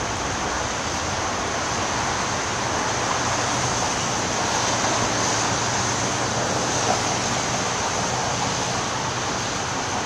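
Steady rushing background noise, even throughout, with a faint low hum.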